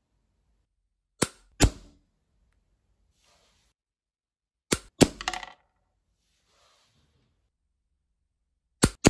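A GAT spring air pistol fired three times, about three and a half seconds apart. Each shot is a sharp crack followed a moment later by a second crack and a short rattle, as the pellet strikes the target and bounces off.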